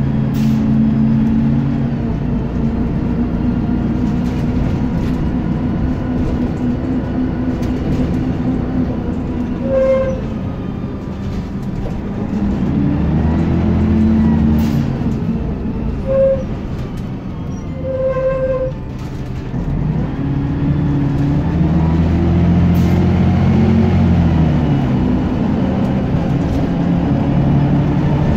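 Scania single-deck bus engine heard from inside the passenger saloon while the bus drives, its note rising and falling as it pulls away and changes gear, twice. Three short beeps sound in the middle.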